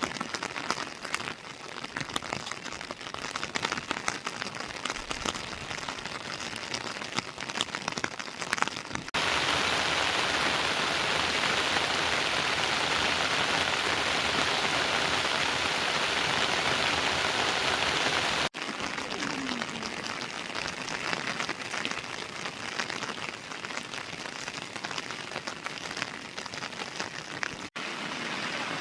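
Heavy rain falling, with the patter of drops on surfaces. In the middle third it is louder and turns into a dense, steady hiss. The sound changes abruptly three times.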